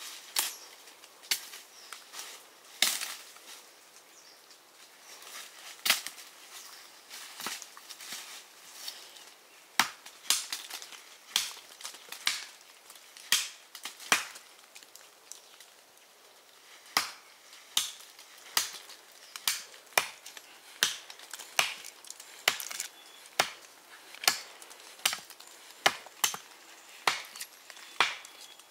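A blade chopping into wood as tree branches are cut: sharp single blows, scattered at first, then a steady run of strokes a little more than one a second from about halfway in.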